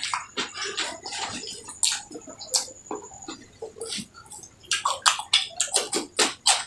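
Close-up wet chewing and lip-smacking of a person eating curry and rice: rapid, irregular mouth clicks and smacks, coming thicker in the last second or two.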